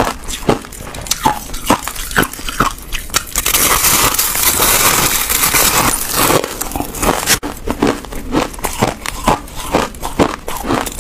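Close-up crunching of white crushed ice, being squeezed by hand and bitten: a run of sharp, separate crunches, then a dense continuous crunch for about four seconds from a few seconds in, then separate crunches again.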